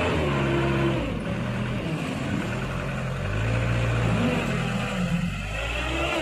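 Mitsubishi Colt Diesel truck's diesel engine revving under load as the truck pushes through deep mud ruts, its pitch rising and falling several times.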